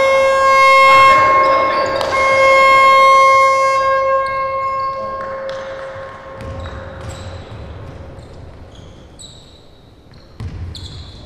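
Basketball arena horn sounding in two long blasts, one steady high pitch with a brief break about two seconds in, the second blast fading out around four to five seconds in. After it, scattered short squeaks and ball bounces on the court.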